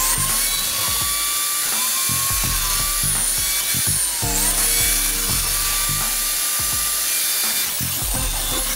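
A woodworking power tool starts up and runs, a steady machine noise with a whine that dips briefly in pitch a few times, over background music.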